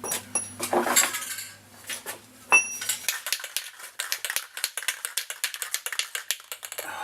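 Metal clinks, then a rapid, steady rattle for the last four seconds: a can of paint being shaken, its mixing ball rattling inside. A low hum runs under the first few seconds and stops about three seconds in.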